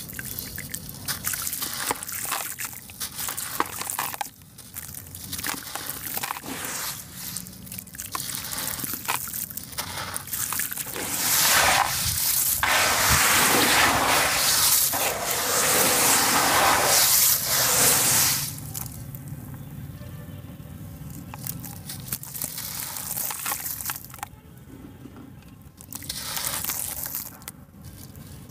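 Dried sand-and-cement blocks being crumbled and squeezed by hand into a basin of water: gritty crunching and crackling, with crumbs splashing and trickling into the water. Midway there is a louder, denser stretch of gritty splashing lasting about seven seconds, then the crackling picks up again near the end.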